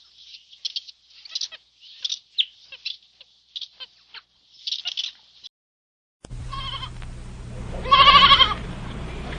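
High-pitched chirping calls in short bursts, stopping about five and a half seconds in. After a short gap a low hum starts, and one loud bleat with a wavering voice follows about eight seconds in, from a goat or sheep.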